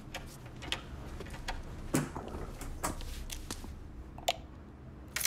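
Sharp clicks and knocks at uneven intervals over a low room hum, then a louder clatter near the end from the flat's front door lock and handle as the door is opened.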